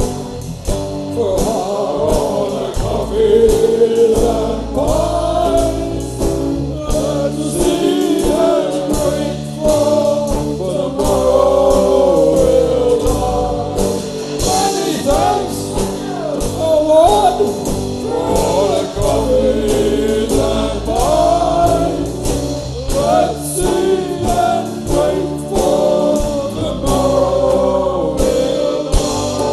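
Live band playing a song, with several male voices singing together over drum kit and guitars.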